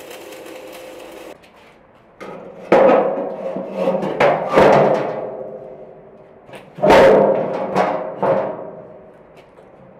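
Arc welder hissing for about the first second, then a heavy curved sheet-steel lid clanking and ringing as it is set down and shifted on the steel barbecue body: several loud metal knocks, the loudest about three, five and seven seconds in.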